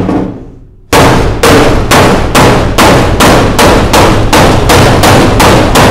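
Hand hammer striking the metal underside of a recovery truck body to beat out a dent. A single blow comes first, then from about a second in a steady run of about a dozen loud blows, roughly two and a half a second, each ringing briefly.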